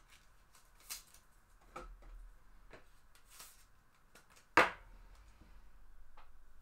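Light plastic handling clicks, then one sharp loud snap about four and a half seconds in, as a trading card is shut into a magnetic one-touch card holder.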